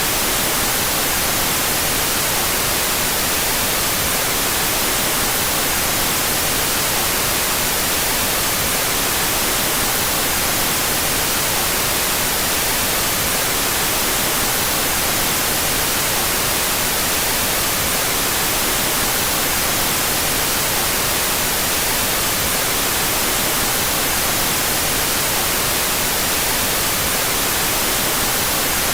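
Steady white noise, an even hiss with no change, its two stereo channels played out of phase with each other.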